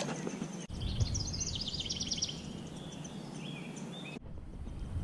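A songbird singing a quick series of high repeated notes for about a second and a half, then a few fainter chirps, over low outdoor background noise that changes abruptly twice.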